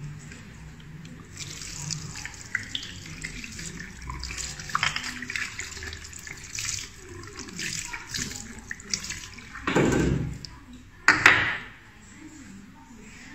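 Tap water running into a ceramic basin and splashing as hands are rinsed under it. Near the end come two louder short bursts of noise.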